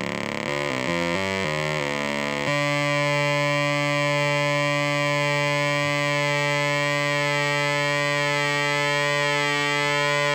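Analogue modular synthesizer tone: a VCO pulse driving fricko Blip! waveshapers set to the sharkstooth wave. The sound shifts in steps over the first couple of seconds, then about two and a half seconds in it settles into a steady tone with a slight chorus-like wavering from pulse-width modulation on the VCO.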